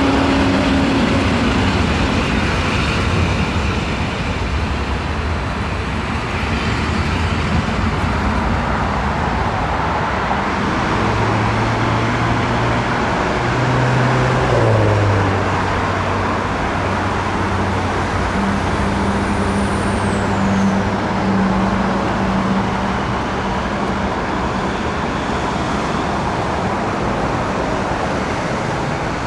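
Steady rumble of a train at a railway station. A low hum comes in about a third of the way through, drops in pitch a few seconds later and fades near the end, and a faint high whistle falls in pitch once past the middle.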